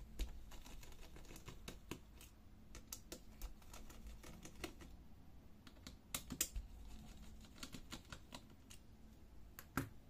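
Faint, irregular small clicks and ticks of a precision screwdriver working the four screws of a laptop's CPU cooler, with gloved fingers handling the parts. A louder click comes near the end.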